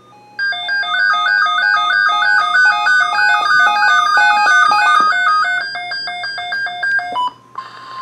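Weather alert radio sounding its electronic alarm, a fast warbling run of alternating beeping tones. About seven seconds in it gives way to a steady single alert tone, the attention tone that comes before a NOAA Weather Radio broadcast.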